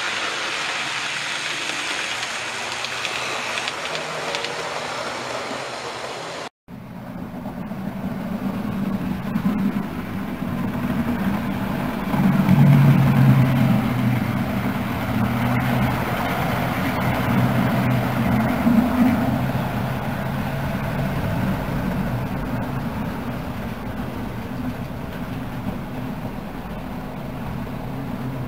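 A steady hiss, then a sudden cut about six seconds in. After the cut a model railway locomotive runs close past a lineside camera: its motor hums and its wheels rumble on the track, loudest around twelve to fourteen seconds in and again near nineteen seconds, then easing off.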